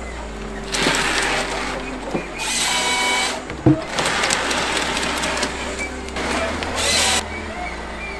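Wood crusher running, grinding wood in repeated surges of noise over a steady low hum, with a couple of sharp knocks.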